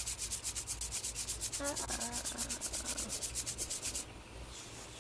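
Cartoon sound effect of fingers rubbing on metal bars: fast, even rubbing strokes, about ten a second, that stop abruptly about four seconds in.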